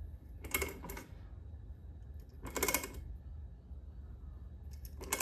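Ratchet clicking in three short bursts of rapid clicks as it winds down the forcing screw of a case splitter pressing on the crank of a KTM 450 EXC engine to separate the crankcase halves. A low steady hum runs underneath.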